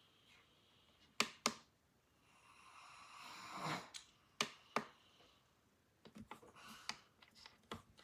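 Faint handling noise: two pairs of sharp clicks, each pair about a third of a second apart, with a short rushing sound that swells and stops between them, then a few lighter clicks near the end.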